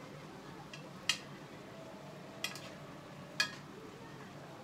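A cooking utensil clinking against a pan of simmering nikujaga as it is stirred: a few sharp, short clinks about a second apart.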